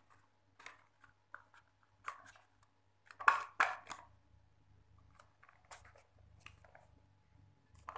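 Hard plastic toy packaging being handled and fitted together: scattered clicks and scrapes, loudest in a short cluster about three seconds in.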